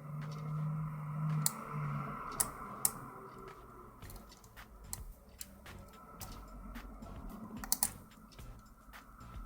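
Sharp metallic clicks and faint scraping of a shallow hook pick working the pins of a six-pin UAP Euro cylinder lock held under light tension, scattered irregularly, with a close pair of louder clicks late on. A low steady hum runs through the first two seconds.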